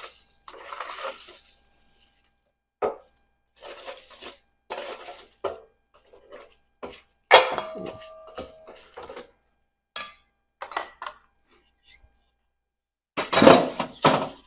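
Roasted Brussels sprouts and carrots being moved off a metal cookie sheet into a bowl: a string of scrapes and clatters of utensil, pan and bowl. There is a ringing clank about seven seconds in and a louder clatter near the end.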